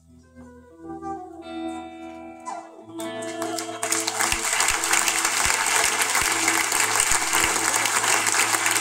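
Flute and electric guitar hold the closing notes of a live song, and a final chord is struck about three seconds in. About a second later the audience breaks into loud applause and cheering, with hands clapping right by the microphone.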